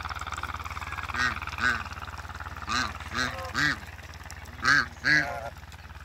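Domestic geese honking: seven short honks in three little bursts, the last two the loudest.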